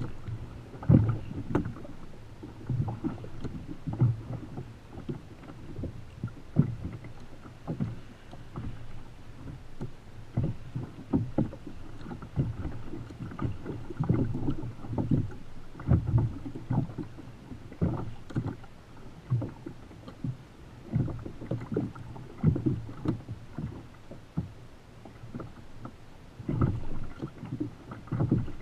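Choppy sea water slapping and sloshing against a plastic sit-on-top kayak's hull, in irregular low knocks and splashes.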